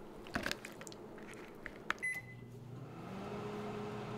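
A few soft taps and clicks, then a single keypad beep about two seconds in as a microwave oven is started, followed by the oven's steady running hum.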